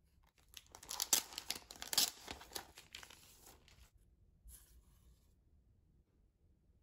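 A clear plastic record sleeve crinkling and rustling as a 7-inch vinyl single is slid out of it. A short, fainter paper rustle follows near the middle, as the disc is drawn out of its picture sleeve.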